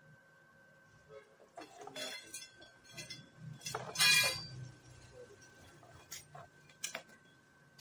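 Scattered metallic clinks and knocks as tools and steel tubing are handled, with the loudest clatter about four seconds in. A faint steady whine runs underneath.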